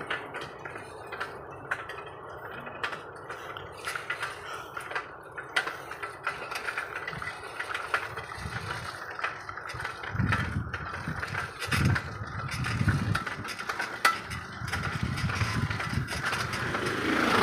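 Bicycle being ridden along a lane: frequent small clicks and rattles from the bike, with a low rumble coming and going in the second half.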